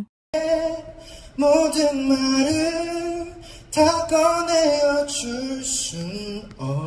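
A man singing live into a handheld microphone: a slow ballad-style cover in long held notes, in two or three phrases with short breaths between.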